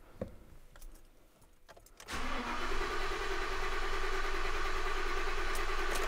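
Starter motor cranking a V8 truck engine steadily without it starting, with the accelerator held to the floor so no fuel is injected, for a relative compression test. The cranking begins about two seconds in, with a steady whine from the starter.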